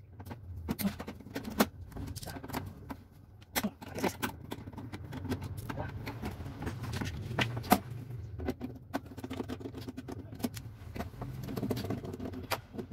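Hand screwdriver backing screws out of a gasless MIG welder's sheet-metal casing: scattered light metallic clicks and ticks as the driver bites and turns and the loosened screws come free.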